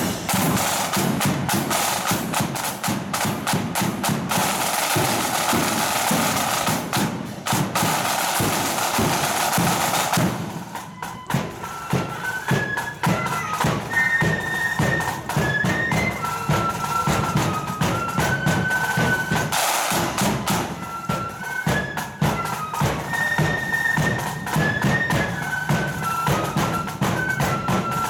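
Marching flute band on parade: its side drums play alone for about ten seconds. Then the flutes come in with a marching tune over the beat of the drums.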